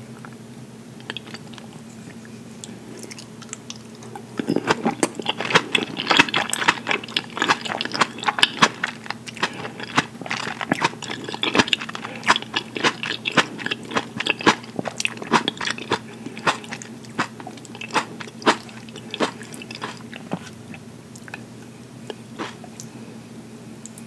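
Close-miked chewing of fresh mozzarella and tomato slices, beginning about four seconds in as a dense run of sharp mouth clicks and squelches. It goes on steadily and thins out near the end.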